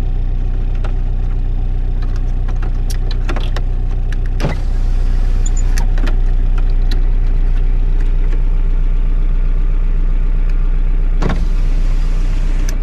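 Car engine idling with a steady low hum. The power window switches on the centre console click a few times, and an electric window motor runs for several seconds from a few seconds in.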